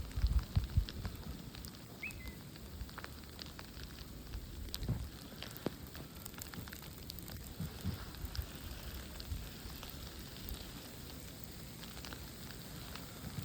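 Snow storm outdoors: a steady hiss with many scattered light ticks of precipitation hitting surfaces, and low gusts of wind buffeting the microphone, strongest near the start and again about five seconds in.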